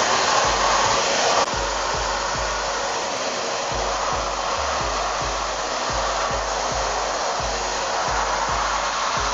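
Household vacuum cleaner running loudly, its motor and airflow making a steady rushing whine that eases slightly about a second and a half in.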